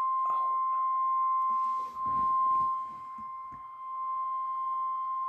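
NOAA Weather Radio's 1050 Hz warning alarm tone: one steady, unbroken beep, dipping briefly in level about two seconds in. It is the alert that comes just before the spoken severe thunderstorm warning.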